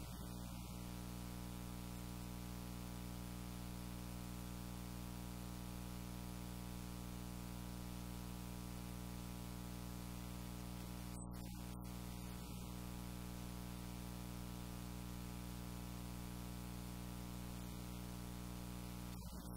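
Steady electrical hum with a stack of overtones over constant hiss, unchanging throughout.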